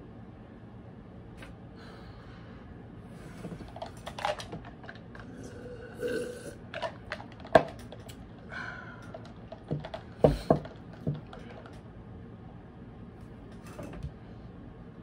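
Scattered small clicks and knocks, with short throaty mouth sounds as a person drinks from a plastic cup.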